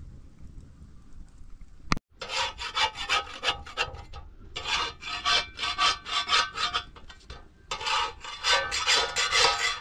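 Flat metal spatula scraping across a domed iron griddle under a flatbread, in quick strokes of about four a second, coming in three bursts with short pauses. A sharp click sounds about two seconds in, just before the scraping starts.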